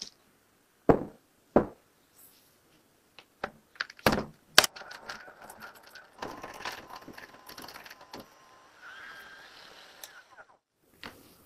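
Several sharp knocks from butter being cut and handled, then an electric hand mixer running from about five seconds in, its beaters creaming butter and sugar in a glass bowl, with a faint steady motor whine. It stops about a second before the end.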